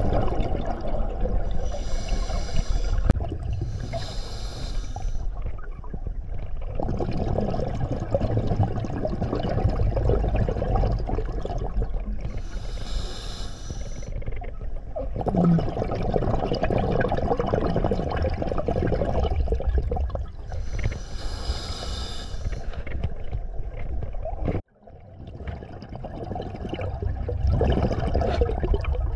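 Underwater scuba breathing: the bubbles of a diver's exhalations rush up in four separate bursts of a second or two, over a steady low rumble of water noise. Late on, the sound drops out abruptly for a moment.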